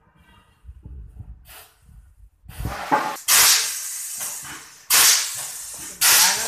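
A tyre retreading mould venting pressure with loud hissing. The hiss comes in three bursts, each starting suddenly, from about halfway in.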